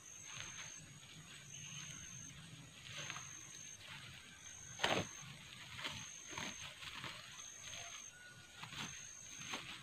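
Plastic sack rustling and leaf litter crackling as taro corms are gathered into the sack, with one sharp knock about five seconds in. A high, even chirp repeats about once a second underneath.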